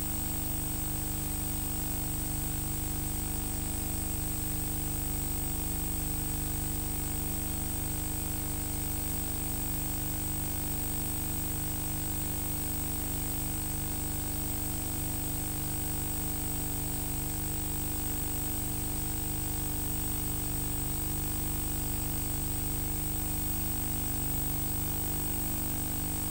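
Steady hiss and electrical hum of the recording, with no distinct sounds.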